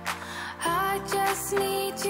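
Background pop music with a steady beat, with a sung vocal line coming in a little over half a second in.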